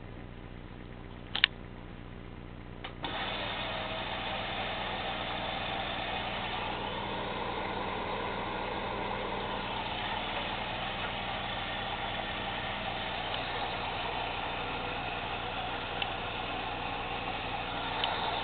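Bauknecht washing machine starting its boil-wash cycle: one sharp click about a second and a half in, then, about three seconds in, a steady rushing sound sets in suddenly and keeps on, as water starts flowing into the machine.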